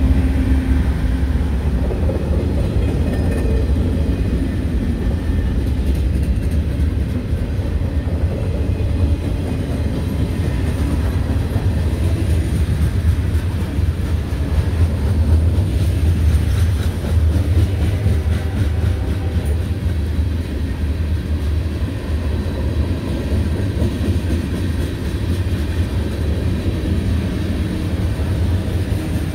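Norfolk Southern mixed freight train's cars rolling past at speed: a steady low rumble, with the wheels clacking over the rail joints.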